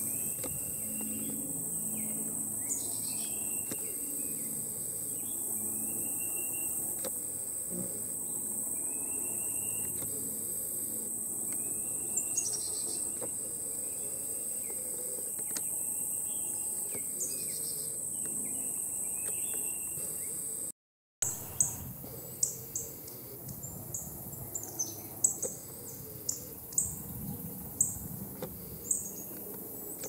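Songbirds calling with short whistled notes over a steady high-pitched insect trill. About two-thirds of the way through, the trill cuts out and a northern cardinal gives sharp, high chip calls, a little more than one a second.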